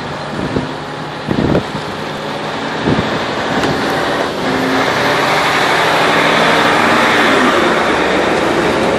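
Diesel engine running and tyres rolling on a large multi-axle all-terrain mobile crane truck, passed at close range and growing louder about halfway through.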